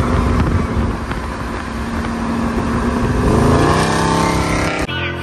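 Engine and road noise of cars driving side by side, with an engine rising in pitch as it accelerates about three seconds in. Music cuts in just before the end.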